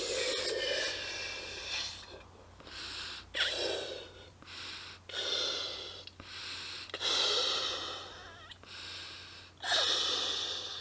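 Air blown by mouth into the inflatable bop ball balloon through its tube: about five long, airy blows with short pauses for breath between them.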